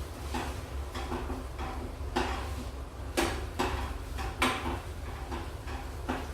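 A utensil scraping and knocking against a frying pan as eggs are stirred to scramble them, in short, uneven strokes about two a second.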